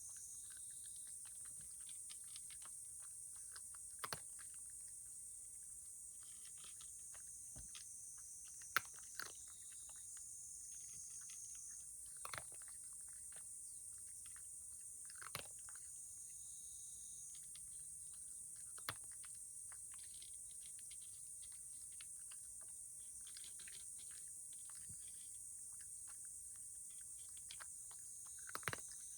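A cat eating from a plate: faint, irregular chewing clicks and crunches, with a sharper tick every few seconds.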